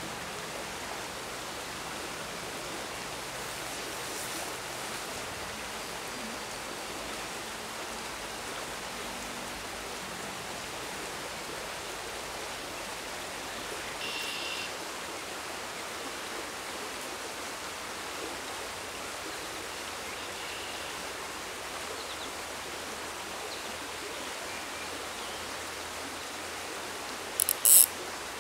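Small stream running over a shallow gravel riffle: a steady rushing water sound. Near the end, a short, loud burst of rapid sharp clicks.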